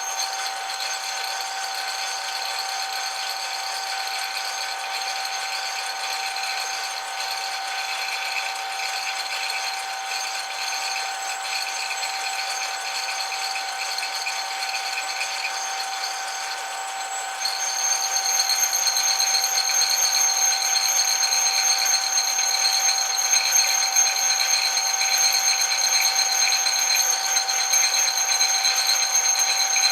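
Metal lathe running with a steady mechanical whine made of several fixed tones. About two-thirds of the way through it gets louder, and its higher whine grows stronger.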